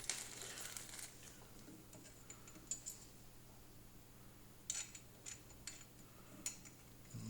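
Faint clicks and light metal taps of bolts being fitted into the metal wheel-mounting bar of a garden shredder's frame: a few scattered ticks, with a short cluster of them about two thirds of the way through.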